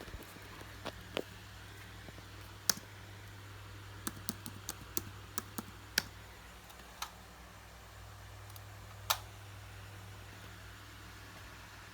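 Scattered sharp clicks of a computer mouse and keyboard, about a dozen at irregular intervals and most of them in the first nine seconds, over a low steady hum.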